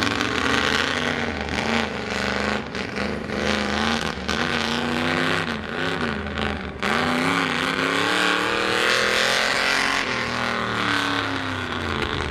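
Ford mud truck engine on open straight-pipe exhaust, revving up and down repeatedly under load over a steady rush of noise. About seven seconds in it picks up sharply and runs high before easing off near the end.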